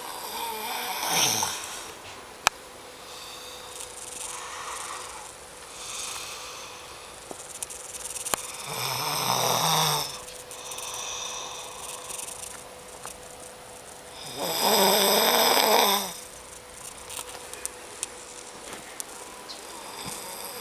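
A sleeping person snoring heavily. Three loud snores come about six seconds apart, the last the loudest, with quieter breaths between them.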